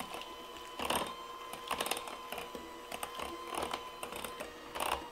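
Electric hand mixer running steadily with a whining motor, its beaters whipping heavy cream into a cream cheese mixture in a glass bowl, with a few brief clatters along the way.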